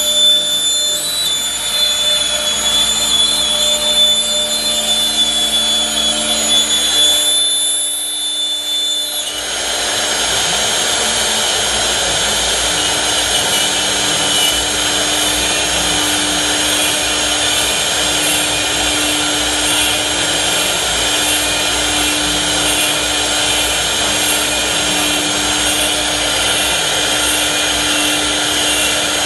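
Woodtec MR-1325 CNC router's spindle running steadily with a high whine. About eight seconds in the sound drops briefly, then a fuller, steady machining noise carries on.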